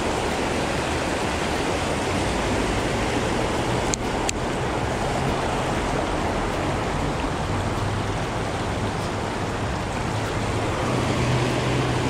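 Steady rush of river water with a low hum of road traffic underneath, the hum growing stronger near the end. Two short sharp clicks come about four seconds in.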